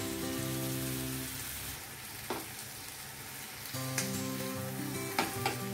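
Chicken drumsticks sizzling in an oiled grill pan, with a few sharp clicks of metal tongs on the pan near the end. Background music runs under it and drops out for a couple of seconds in the middle.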